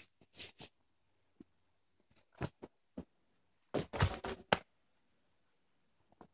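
Dead wooden pole carried through forest-floor litter: a few crackles and snaps of twigs and footsteps, then a loud clattering knock about four seconds in as the pole is dropped onto the ground among other poles.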